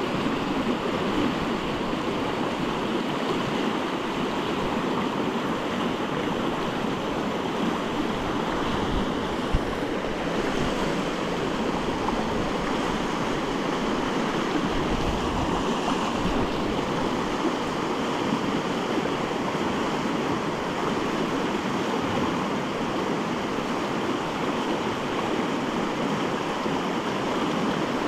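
Fast, shallow river water rushing over a rocky riffle: a steady, even rush of white water, with one brief knock about nine and a half seconds in.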